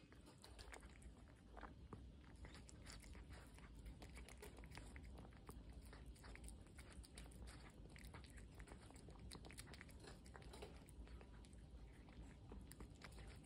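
A cat eating wet cat food from a plate, close up: soft, quick, irregular wet chewing and smacking clicks.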